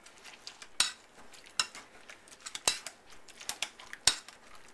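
Wire potato masher mashing strawberries in a bowl: irregular clinks and knocks of the masher against the bowl, a few strong ones among many lighter taps.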